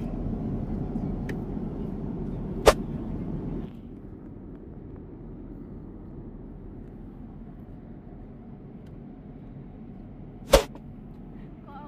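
Steady airliner cabin noise aboard a Boeing 787-10, louder for the first few seconds and then quieter, broken twice by a sharp sudden click: about two and a half seconds in and again near the end.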